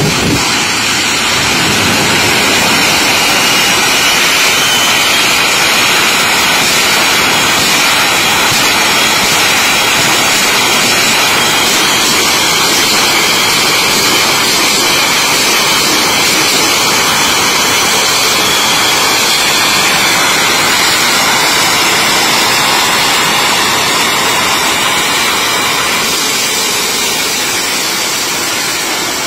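Shockwave jet truck's three Pratt & Whitney J34 jet engines running at full power with afterburners lit: a loud, steady roar with a faint high whine over it, easing off slightly near the end as the truck heads down the strip.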